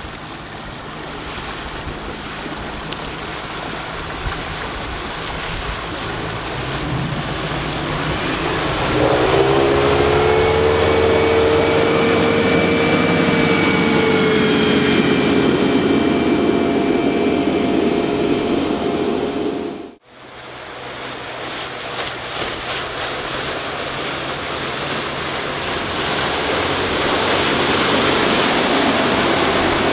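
Mercruiser 4.3-litre V6 stern drive powering a Bayliner 192 runabout on the water, with its wake rushing and wind on the microphone. Roughly a third of the way in, the engine note rises as the boat accelerates, then holds at high revs. About two-thirds through, the sound cuts out suddenly for a moment, then the engine and water noise return and build again.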